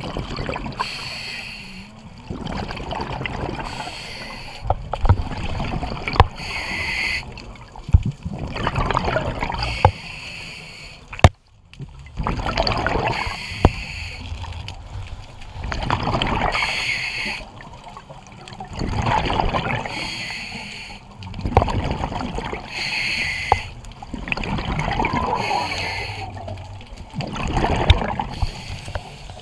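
Scuba diver breathing through a regulator underwater: a short hissing inhale alternates with a longer gurgle of exhaled bubbles every few seconds. A few sharp clicks are heard in between.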